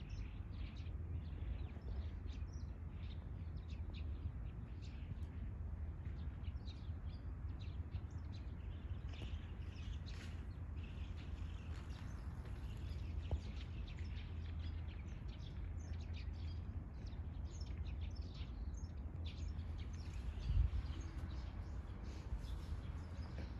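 Small birds chirping again and again over a steady low outdoor rumble, with one brief thump near the end.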